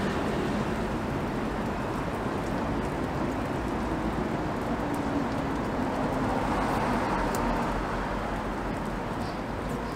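Steady, even background rumble at an outdoor street-food stall, mostly low and mid-pitched, with no distinct knocks or clatter; it eases off slightly near the end.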